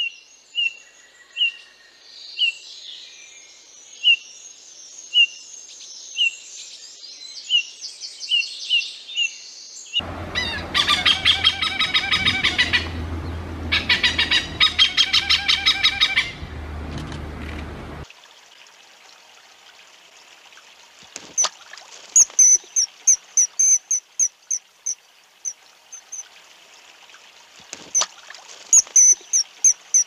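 Bird calls in three parts. First a Eurasian bullfinch gives soft, short piping notes about once a second over faint twittering. About ten seconds in, a hornbill's loud, rapid cackling calls follow in two long bouts. From about eighteen seconds on, a common kingfisher gives shrill high whistles in quick runs.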